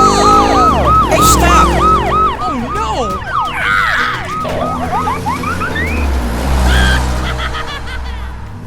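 A siren with a fast, repeating up-and-down wail, about three cycles a second, over a steady low engine rumble; the siren breaks off about three seconds in, leaving the rumble and a few rising whistle-like glides.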